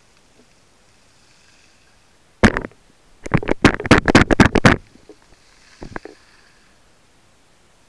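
Clicking heard underwater: one sharp click, then a rapid run of about a dozen sharp clicks lasting about a second and a half, and two fainter clicks after it.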